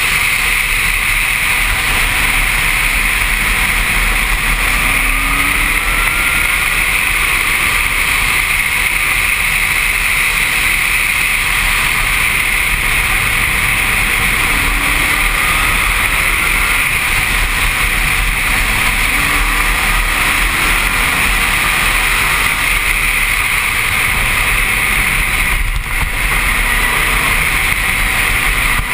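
Loud, steady wind noise buffeting a helmet-mounted camera in the open cockpit of a Pescarolo prototype race car at speed. The engine is heard faintly underneath, its note rising a few times as the car accelerates.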